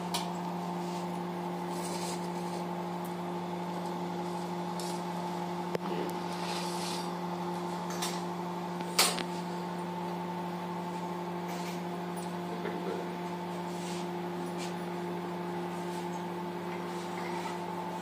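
A steady appliance hum, with a few light clicks and knocks on top as the pizza is slid from its wire baking rack onto a plastic cutting board. The sharpest click comes about nine seconds in.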